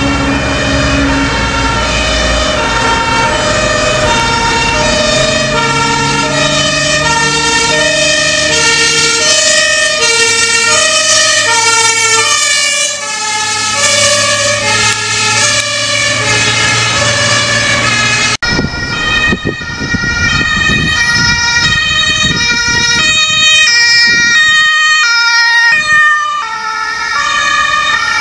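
Dutch fire-service two-tone sirens alternating steadily between two notes. First the aerial ladder truck's siren, with its diesel engine rumbling underneath as it passes. After a cut about 18 seconds in, a second two-tone siren sounds, from a fire officer's van.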